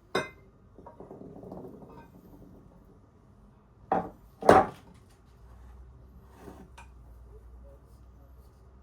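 Things being handled and set down on a hard surface: a sharp click, a soft rustle, then two louder knocks about half a second apart, with two faint clicks near the end.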